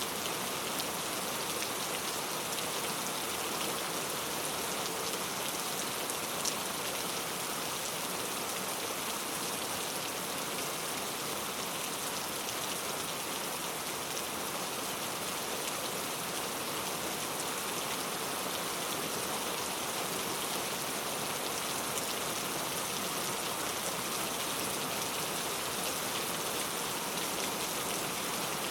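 Heavy rain falling steadily, a dense even hiss of countless drops, with one sharper single tick about six and a half seconds in.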